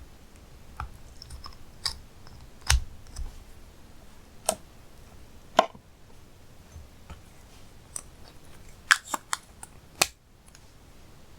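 Slime being kneaded and pressed by hand, giving irregular sharp clicks and pops, with a quick run of several near the end.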